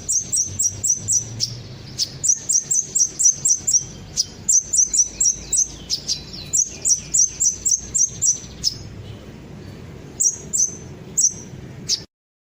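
Sunbird (kolibri ninja) song played as a lure recording: rapid runs of high, sharp chirps, about six a second, in bursts separated by short pauses. It cuts off abruptly near the end.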